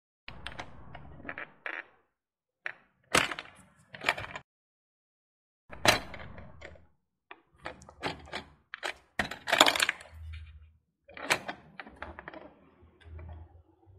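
Toy ball claw machine being worked by hand: irregular sharp plastic clicks and clacks from its buttons and claw mechanism, with short rattling stretches between them.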